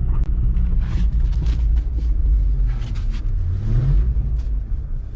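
Jeep Grand Cherokee ZJ engine idling roughly in the cold after sitting for months, its speed rising briefly about three and a half seconds in; it has a running problem and is struggling to stay running.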